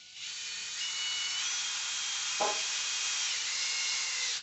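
A power drill spinning, winding a ratchet strap into a tight roll. It gives a steady whine whose pitch steps up and later down as the trigger is squeezed and eased. There is a brief knock around the middle, and the drill cuts off suddenly at the end.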